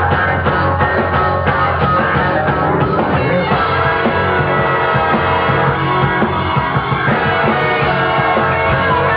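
Rock band music at full volume: a steady drum beat drives it for the first few seconds, then sustained chords come to the fore while the beat drops back.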